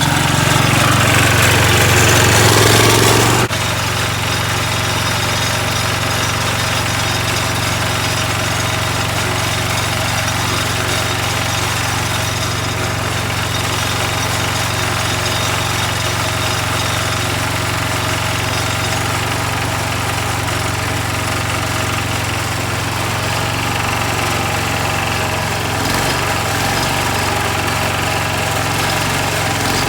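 Sears Suburban garden tractor's small engine running. It is louder at first, drops off suddenly about three and a half seconds in, then runs steadily.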